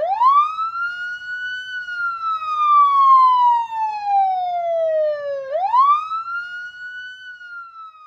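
Siren wailing: one clean tone sweeps up quickly, slides slowly back down over about four seconds, then sweeps up again and begins another slow fall, fading out near the end.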